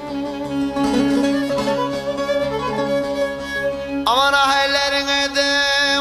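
Turkish folk music with no words: ornamented melody over a steady drone, with a strong held note that slides up into place about four seconds in.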